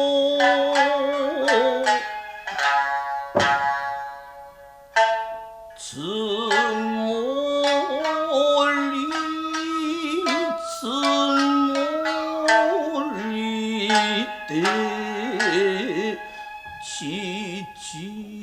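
Nagauta music: sharp plucked shamisen-style notes under a melody line of held notes that waver and bend in pitch. The playing thins out briefly about four seconds in, then the melody resumes.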